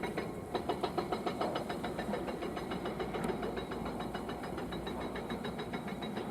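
Excavator's hydraulic rock breaker hammering in rapid, evenly spaced blows, starting about half a second in, over the excavator's running engine.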